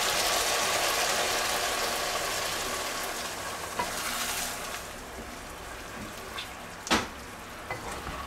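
Chicken strips and mushrooms sizzling in a frying pan while being stirred with a wooden spatula; the sizzle fades over the first few seconds as cold cream goes into the pan and cools it. A single sharp knock sounds about seven seconds in.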